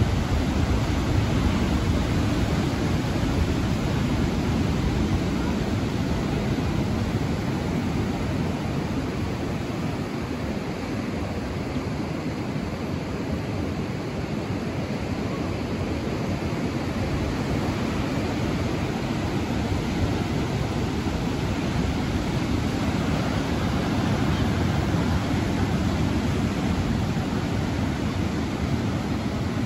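Steady wash of ocean surf breaking on a beach, heard with wind blowing across the microphone.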